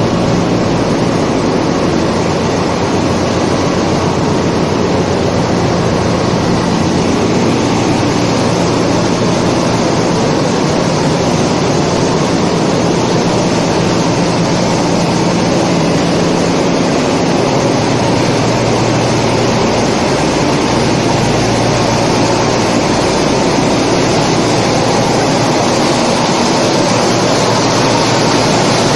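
Ship's engine room machinery running: a loud, steady drone of engines, motor-driven pumps and ventilation together, with a few constant low hums.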